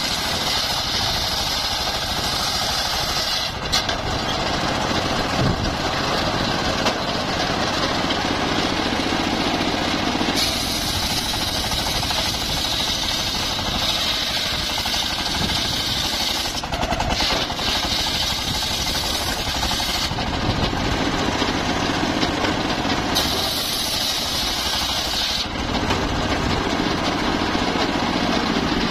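Homemade engine-driven circular sawmill running while sawing mahogany, a steady machine drone with a higher hiss that comes and goes every few seconds as the blade cuts.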